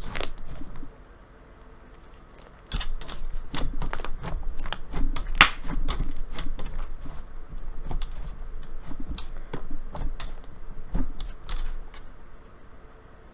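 Thick slime squished and stretched by hand, giving off rapid wet clicks and pops, with a pause of about two seconds about a second in.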